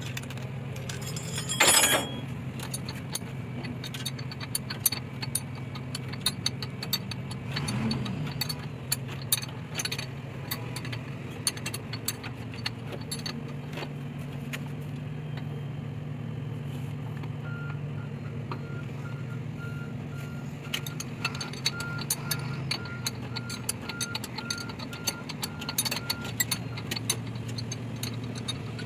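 Metal clinks and taps of a spanner and bolt on the idler pulley of a bus engine's belt drive, over a steady low engine hum. A loud metallic clatter comes about 2 s in, and a short beep repeats about twice a second for some ten seconds in the second half.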